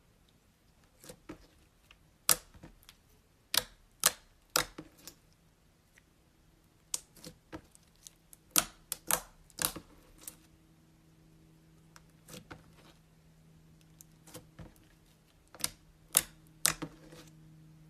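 Slime being squeezed and poked, giving irregular sharp clicks and pops, some in quick runs of two or three. A faint steady hum comes in about six seconds in.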